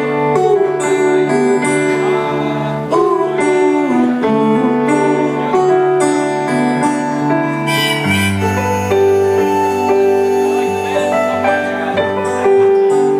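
Live blues-folk band playing an instrumental passage on strummed acoustic guitar and keyboard over a low bass line, with a long held melody note in the second half.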